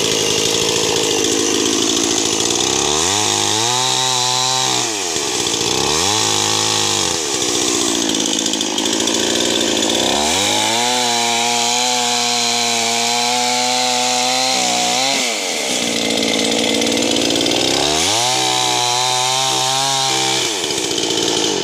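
A two-stroke chainsaw runs at full throttle while limbing a felled tree. Its engine note drops each time the chain bites into a branch or the trunk and climbs again between cuts: four cuts, the longest about five seconds near the middle.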